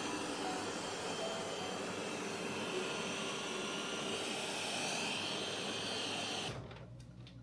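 Roborock robot vacuum running: a steady fan noise with a high whine, which cuts off abruptly near the end, leaving a quiet room.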